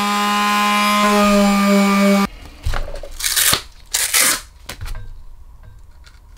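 Electric detail palm sander running with a steady hum while sanding a seam on EVA foam. It cuts off abruptly a little over two seconds in, followed by a few short rasping scrapes and rustles of sandpaper sheets being handled.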